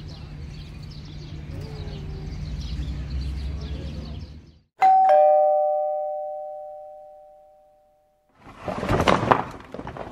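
Low steady room hum, then about five seconds in a single two-note chime, both notes sounding at once and fading away over about three seconds. Brief clicks and rustles of handling near the end.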